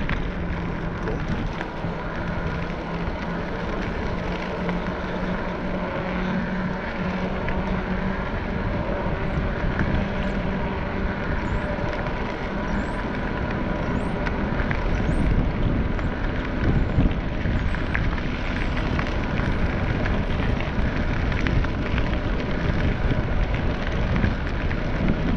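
Steady wind rush on an action camera's microphone and road rumble from moving along a road, with a low hum through roughly the first ten seconds.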